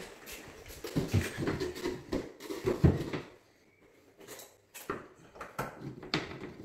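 Irregular knocks and scuffs of footsteps on a bare concrete floor and a plasterboard strip being handled and set against the bottom of a wall, loudest about three seconds in, with a brief lull before scattered lighter clicks.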